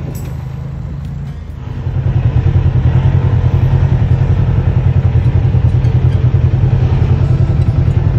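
Side-by-side UTV engine idling close by, a steady low throb that gets louder about two seconds in.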